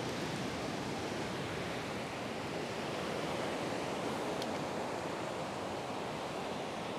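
Steady wash of small waves breaking and running up a sandy beach.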